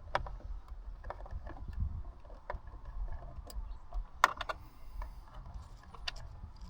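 Scattered small clicks and knocks of a hand tool working a screw loose from plastic interior trim, with one sharper click about four seconds in.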